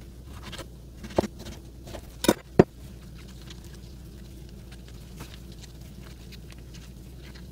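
Chef's knife chopping peeled tomatoes on a wooden cutting board: three sharp knocks in the first few seconds, the last two close together, then quiet.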